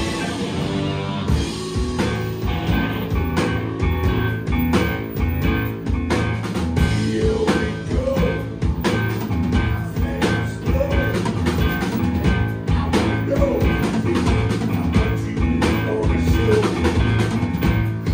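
Live rock and roll band playing: electric guitars and saxophones over a steady beat on a drum kit.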